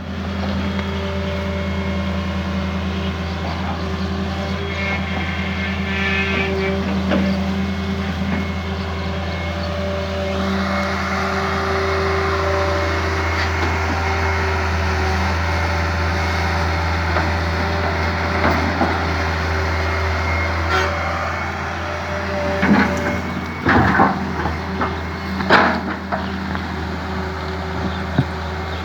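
John Deere 595D excavator's diesel engine running steadily, with a few sharp knocks and clanks near the end.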